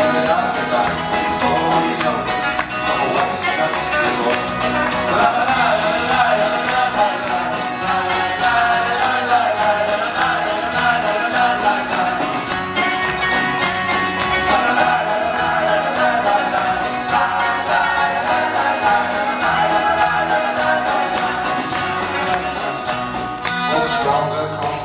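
Live folk-country band playing an up-tempo song with a lead vocal over strummed acoustic guitar, fiddle, banjo, mandolin, bass guitar and drums.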